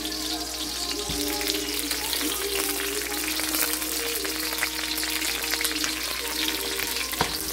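Onions, halved jalapeño peppers and garlic cloves sizzling and crackling steadily in hot olive oil in a wok, with a sharp knock about a second in and another near the end. Soft music plays underneath.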